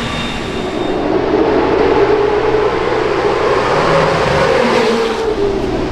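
Late model race cars running at speed on the track, a loud steady engine drone whose pitch rises a little and then falls again.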